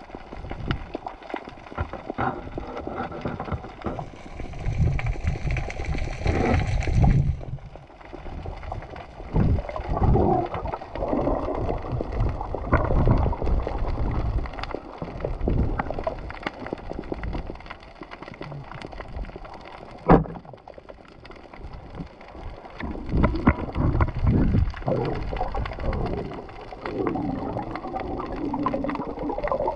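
Muffled underwater sound picked up through a camera's waterproof housing while swimming: irregular sloshing and bubbling water with low rumbles, and one sharp click about twenty seconds in.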